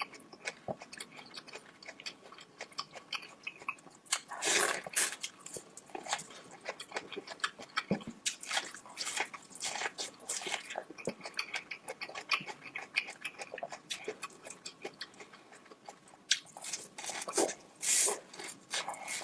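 Close-miked ASMR eating sounds: someone chewing saucy shelled seafood and corn, with irregular wet smacks, slurps and crunches, louder in a couple of bursts.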